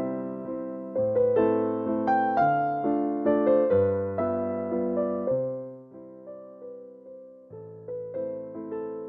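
Background music: a gentle piano or electric piano piece, notes struck at a slow, even pace, thinning out to a few soft notes in the middle before the phrase picks up again.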